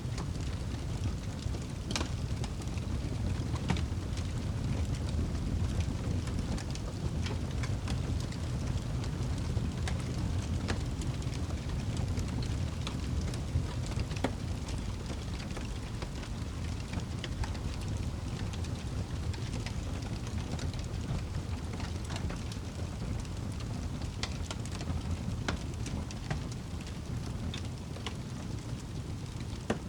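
Wood fire burning in a fireplace: a steady low rumble of flames with irregular sharp crackles and pops from the logs.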